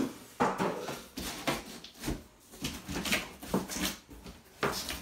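Cardboard packaging being handled and pulled about inside a shipping box: a series of short scraping and rustling sounds, about eight in a row.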